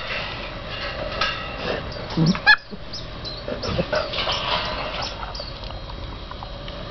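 Greater Swiss Mountain Dog puppies whining and yipping, many short high calls, with one loud rising yelp about two and a half seconds in.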